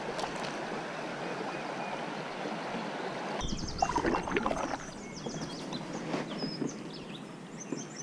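Creek water running steadily over a shallow riffle. About three and a half seconds in, it gives way to a kayak paddle dipping and splashing in slow water, with drips and light knocks between strokes.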